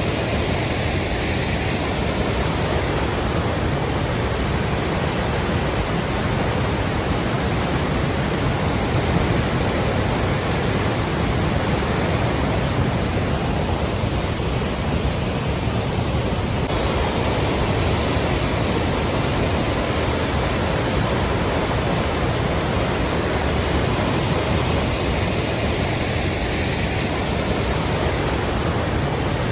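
Flowing water rushing steadily and evenly, without breaks.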